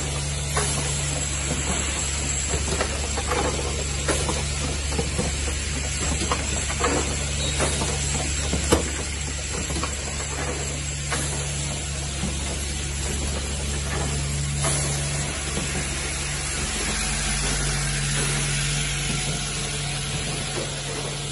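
Automatic three-nozzle perfume filling and capping machine running: a steady hum and hiss with frequent short mechanical clicks and knocks from its moving stations, and one sharper knock about nine seconds in.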